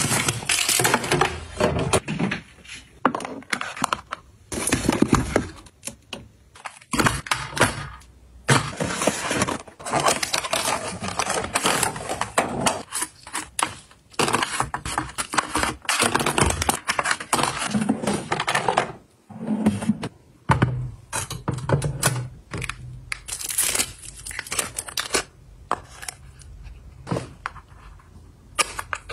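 Skincare packaging being handled at close range: crinkling of plastic sachets and wrap, with irregular taps and clicks of plastic bottles, capsule trays and cardboard boxes.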